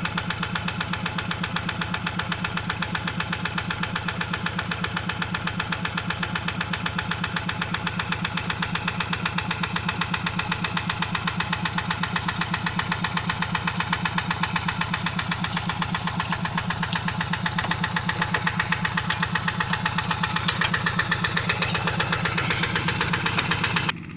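Quick G1000 two-wheel hand tractor's single-cylinder diesel engine running steadily with an even, rapid chugging beat, growing a little louder over the second half.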